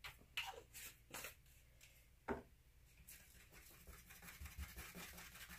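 Near silence with a few faint taps and light scraping as cups of acrylic pouring paint are handled.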